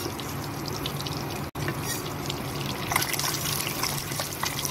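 Hot oil sizzling and crackling around turmeric-coated hard-boiled eggs shallow-frying in a kadhai, as a wooden spatula turns them. The sound drops out for an instant about one and a half seconds in.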